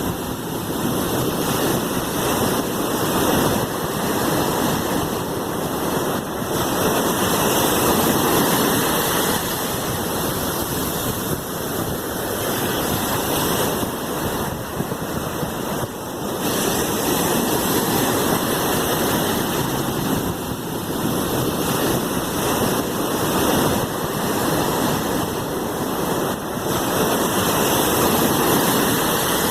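Sea waves: a steady rush of surf that slowly swells and eases every several seconds.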